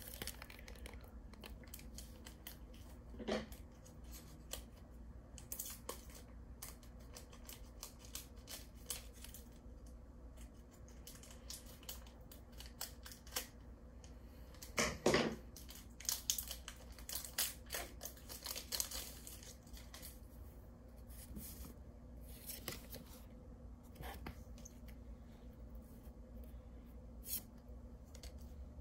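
Foil wrapper of a Pokémon Trading Card Game booster pack being crinkled and torn open by hand, then trading cards rustling and clicking as they are handled. The crackles are faint and scattered, with a louder burst about halfway through.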